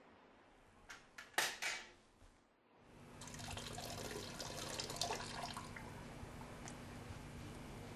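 A few sharp knocks about a second in, then from about three seconds in a steady rush of running water in a small bathroom.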